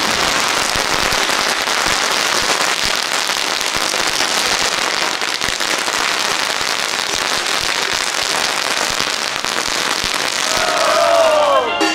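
A long string of firecrackers going off, an unbroken rapid crackle of small bangs.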